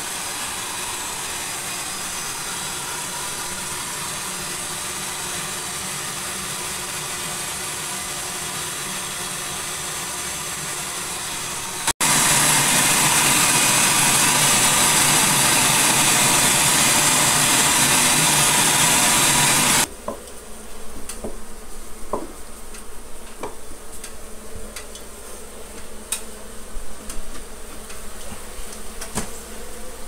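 Bee vacuum running steadily as honey bees buzzing in an opened ceiling hive are sucked through its hose. About twelve seconds in the sound jumps louder. About eight seconds later it drops to a quieter, uneven buzz with scattered light taps.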